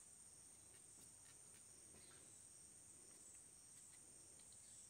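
Near silence, with the faint, steady, high-pitched chirring of insects and a few faint ticks.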